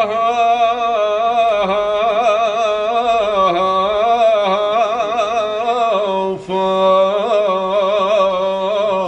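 A man singing unaccompanied: a long, wordless, ornamented vocal line with heavy vibrato, the drawn-out 'oof' of Lebanese folk mawwal singing. There is a brief break for breath about six and a half seconds in.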